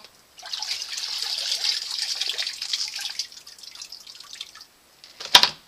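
Water streaming and dripping off a submersible sump pump and its discharge pipe as they are lifted out of the sump pit, splashing back into the pit water and thinning to drips. One sharp knock near the end.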